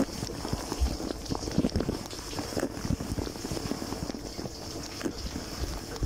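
Dishwasher wash cycle heard from inside the tub: spray-arm jets splashing water over plates and racks, a steady rushing wash broken by irregular small knocks of water striking.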